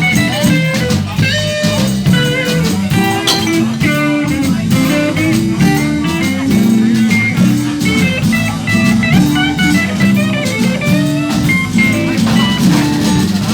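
Live band playing an instrumental break in a slow blues-style song, with a lead guitar soloing in quick runs and bent notes over the rhythm section.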